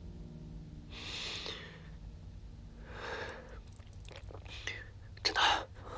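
A man breathing heavily: a few long, breathy exhalations or sighs roughly every two seconds, the last one the loudest, over a low steady hum.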